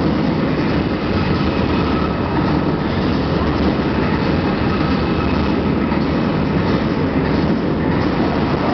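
Loud, steady arena din with no distinct strikes or calls, heavy in the low end and distorted on the camera microphone: a blend of crowd noise and music over the public-address system.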